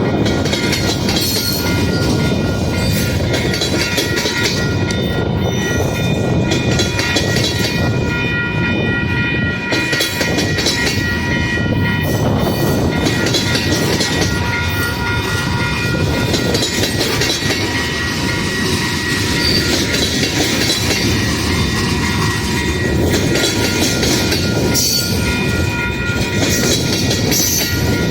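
Buffalo Southern Railroad's ALCO RS-11 diesel locomotive 5010 running, its turbocharged engine's rumble carrying a steady high whine, with train wheels on the rails.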